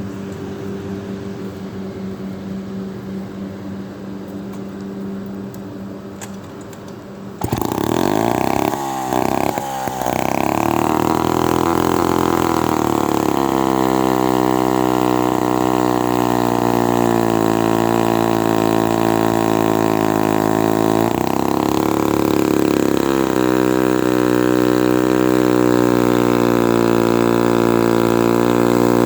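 Vintage Lombard 3-1/2D chainsaw engine running: it runs lower and quieter at first, then about seven seconds in it jumps to full throttle and holds a steady high-speed run while cutting dead oak, with a brief dip in speed about twenty-one seconds in.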